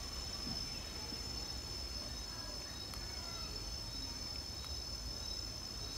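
Steady high-pitched chirring of insects, several even tones holding without a break, over a low rumble.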